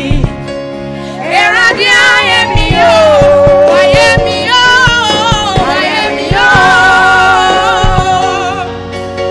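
A young woman singing a gospel song into a microphone, with long held notes that waver in vibrato, over instrumental backing with a steady beat.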